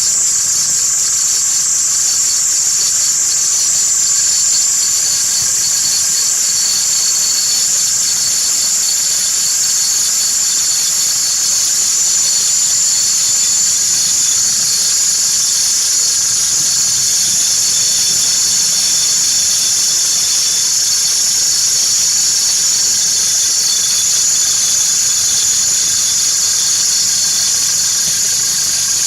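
2013 Chevrolet TrailBlazer 2.8-litre turbodiesel running with a loud, steady high-pitched whistle over the engine note.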